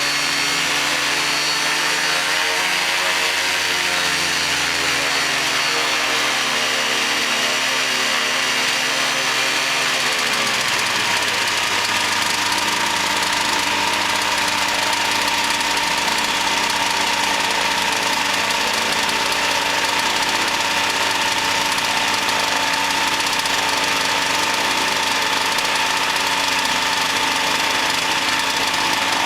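Ultralight aircraft engine and propeller running just after a choke start: the engine speed wavers up and down over the first few seconds, drops about ten seconds in, then runs steadily.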